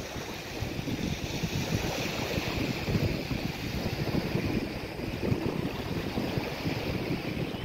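Wind buffeting the microphone in a steady rumble, over small waves lapping at the water's edge.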